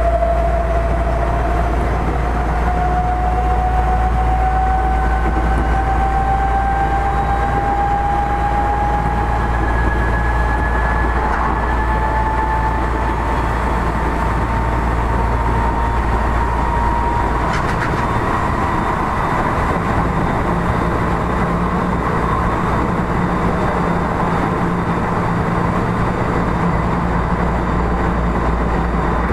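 Odakyu 1000 series electric train with a Mitsubishi GTO-VVVF inverter, heard from inside the car: under power, its traction whine rises slowly in pitch as the train gathers speed. About two-thirds of the way through there is a small click, the whine and the low drone fade, and the train runs on with steady rail and air-conditioning noise.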